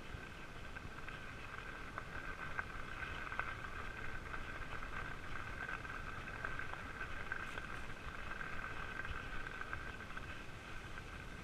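Fat bike's wide knobby tyres rolling along a gravel path: a steady hum with scattered small clicks of grit under the tyres.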